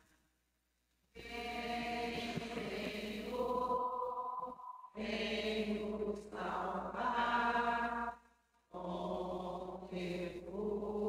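Congregation singing a slow Advent hymn in long held notes: three sustained phrases of about three seconds each, with short breaks between them.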